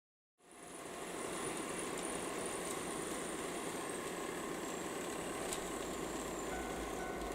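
HO-scale model train running on its track: a steady rolling rumble with a faint high motor whine. A faint steady tone joins about a second before the end.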